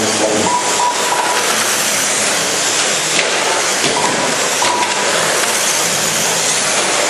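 Quarter-scale radio-controlled race cars running on a track: a steady, loud, hiss-like racket with short whining tones now and then.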